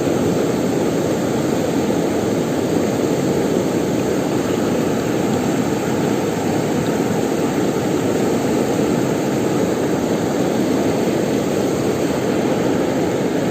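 Steady rushing of river water: an even, unbroken noise.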